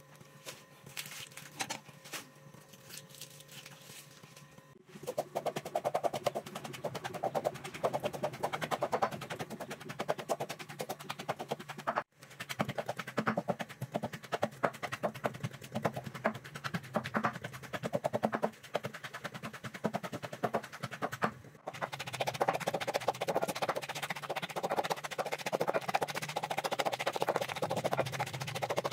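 Wooden pestle pounding shallots, garlic, chives and fish in a clay mortar: rapid, steady knocking that starts about five seconds in, after a few quieter scattered clicks.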